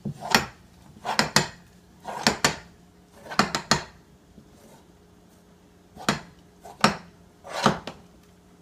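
A knife blade knocking and scraping against a wooden board in short paired strokes, about once a second, as soft dumpling dough is cut off the board. It stops for about two seconds midway, then three more strokes follow.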